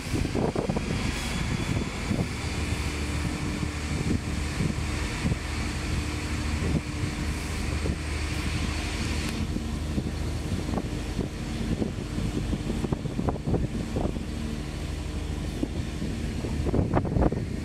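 Open-top double-decker sightseeing bus driving along, its engine running with a steady hum and road noise, heard from the open upper deck. Wind buffets the microphone, more strongly near the end.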